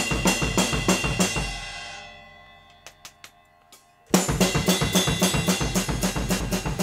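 Drum kit played in a fast, straight, even groove of sticks and hi-hat alternating with bass drum. The groove stops about a second and a half in, the ringing dies away with a few faint taps, and the groove starts again about four seconds in.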